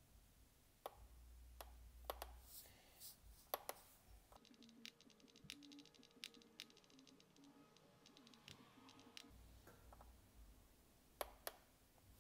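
Faint scattered clicks of buttons being pressed on a Jumper T16 radio transmitter, over near-silent room tone.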